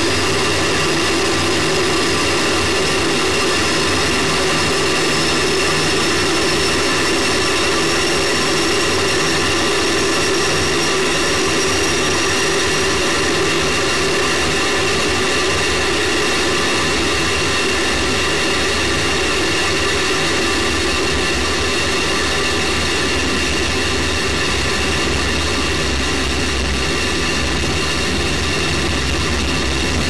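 Space Shuttle solid rocket booster burning during powered ascent after throttle-up, heard through the booster's onboard camera as a steady, unbroken roar. Several steady whining tones sit on top, one high one slowly rising in pitch over the first dozen seconds.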